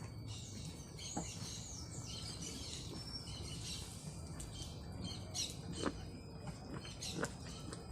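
Birds chirping and singing, busiest in the first few seconds, with a few sharp clicks or knocks scattered through.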